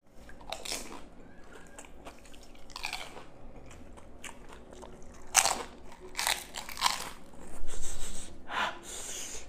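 Crisp pani puri shells being bitten and chewed, a run of separate crunches that come closer together in the second half.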